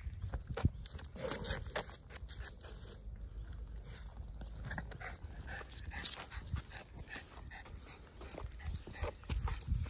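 A dog panting and moving about, with irregular taps and clicks.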